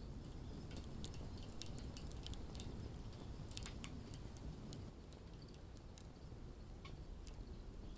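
Wood fire burning: irregular sharp crackles and pops of burning wood over a low steady rumble of the flames, the crackling busiest in the first half.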